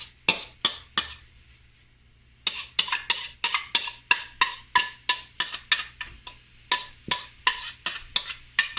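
Metal utensil clinking and scraping against cookware as sliced vegetables are tipped into the pan and stirred: a few clinks, a short pause, then a steady run of about three ringing clinks a second.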